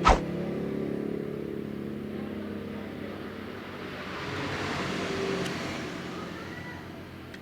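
A motor vehicle's engine running and fading away as it passes, with a second swell of traffic noise about five seconds in. A single sharp click right at the start.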